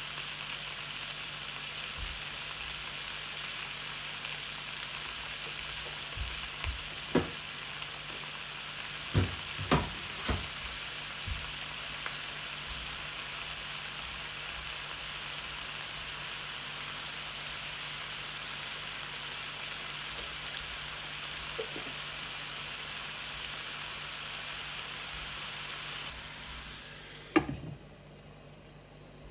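Food sizzling in a hot pan: a steady hiss, with a few short knocks in the first half. The sizzle dies away near the end, just after one sharp knock.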